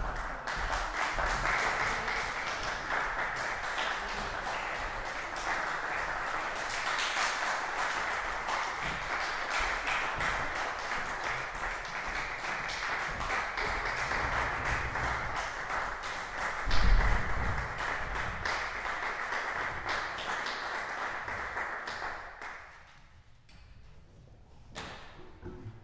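Audience applauding steadily for about twenty seconds, stopping fairly suddenly near the end. A low thump stands out about three quarters of the way through.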